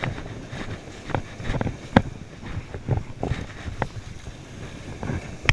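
Wind buffeting the microphone over the wash of surf, with a string of sharp knocks and rustles from hands working close to the microphone; the loudest knock comes about two seconds in.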